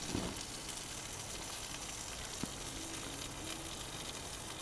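Steady sizzling hiss of a thick New York strip steak searing in a Lodge cast iron pan inside a gas-fired Ooni Koda 16 pizza oven.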